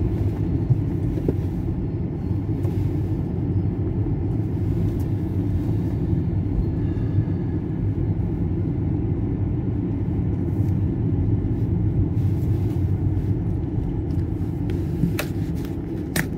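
Steady low rumble of a car driving, heard from inside the cabin, with a few short clicks near the end.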